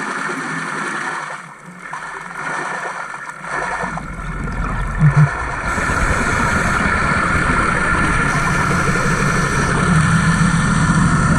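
Underwater noise picked up through a camera housing: a steady rumbling wash that grows louder about four seconds in, with a short double knock about a second later.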